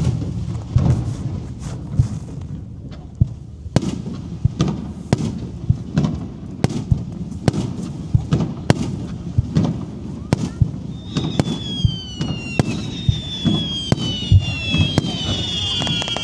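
Fireworks display: a rapid string of shell bursts, sharp bangs about one to two a second over a low rumbling reverberation. About eleven seconds in, several whistling tones join the bangs, each sliding down in pitch.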